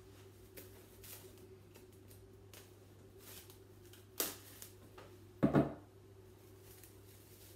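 Cling film being pulled off its cardboard roll with light plastic rustles, a sharp crackle about four seconds in, then the loudest sound, a short knock, a second later as the roll is put down on the table.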